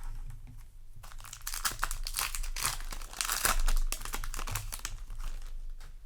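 Foil wrapper of a Yu-Gi-Oh! booster pack crinkling and tearing as it is opened, a dense irregular rustle that peaks about three and a half seconds in.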